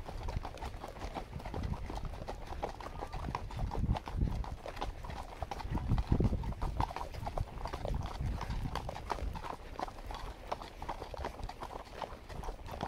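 Hoofbeats of a ridden horse on a dusty dirt trail, a steady run of clopping footfalls, with a few heavier low thumps about four and six seconds in.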